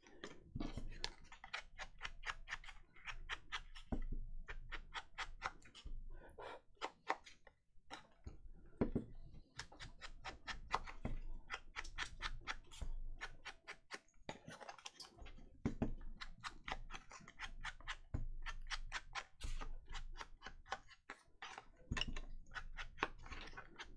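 Ink applicator dabbed quickly and repeatedly onto paper: runs of light, sharp taps, several a second, with short pauses between runs.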